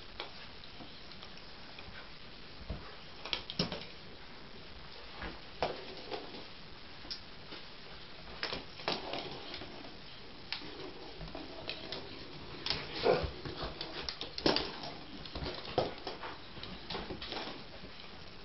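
A dog playing with a small ball toy on a rug and a wooden floor: irregular taps, clicks and scuffles, sparse at first and busier through the second half.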